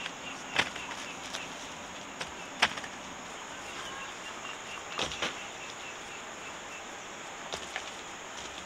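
Steady high insect buzz with a handful of sharp knocks or snaps spread through it, and a faint run of short, evenly spaced chirps in the middle.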